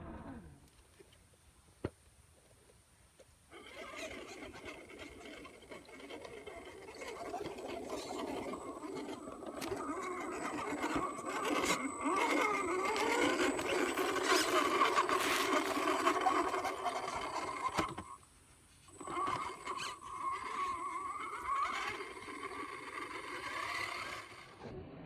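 RC off-road truck's brushed electric motor and gearbox whirring, the pitch wavering up and down with the throttle, with a short break about 18 seconds in.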